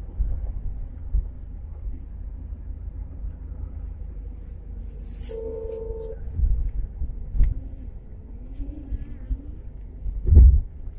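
Steady low road and engine rumble of a vehicle driving along a highway, heard from inside with wind buffeting the microphone. A short, steady horn honk sounds about five seconds in, and a heavy low buffet of wind comes near the end.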